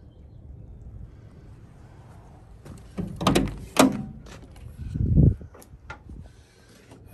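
Driver's door of a 1963 Land Rover Series IIa being opened: metal clunks about three seconds in, then a heavier thunk and a couple of latch clicks around five seconds in.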